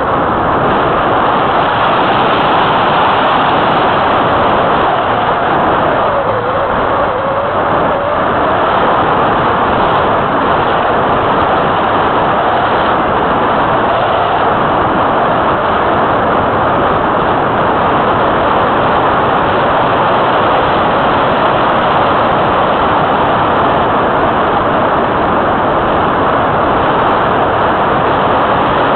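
Steady, loud wind rush over a keychain camera's microphone mounted on the wing of an Easy Glider Pro RC glider in flight.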